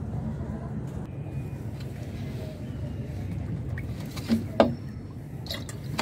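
A steady low rumble, with two short sharp knocks about four and a half seconds in.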